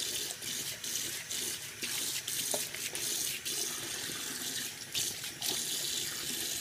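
A bathroom sink tap running into the basin, the water splashing unevenly as a towel is rinsed and squeezed under the stream.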